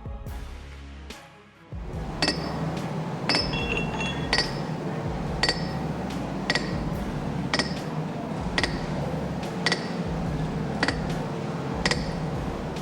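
Sharp, ringing metal-on-metal clinks, evenly spaced about once a second, over a steady low rumble.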